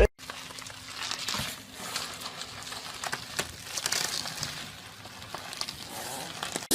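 Rustling with scattered light clicks and taps, starting abruptly after a cut.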